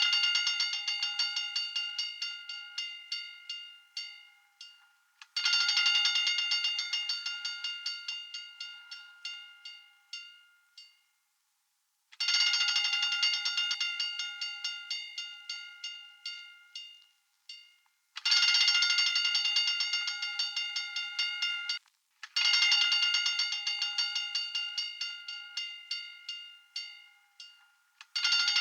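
Hand-cranked fire alarm bell ringing in repeated bursts. Each burst starts loud with rapid clanging strikes, then slows and fades over about five seconds before the next one begins, six times in all.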